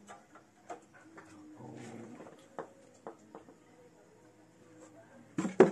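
Hand tools clicking and clinking against a motorcycle engine's metal parts, a few sharp separate clicks, then a loud knock near the end.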